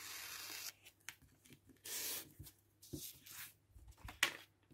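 Craft knife slicing along the edge of a sheet of adhesive stamper's roll, a steady scratchy hiss that stops under a second in. Then come a few short rustles and scrapes of the card and sheet being handled, and a sharp tap near the end.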